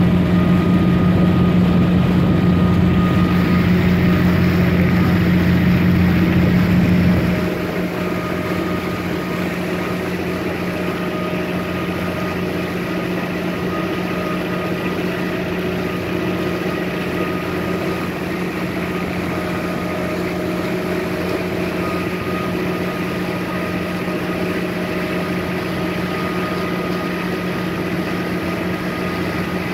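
A tour boat's engine running with a steady hum. About seven seconds in it drops suddenly to a quieter, steady running level, as if throttled back.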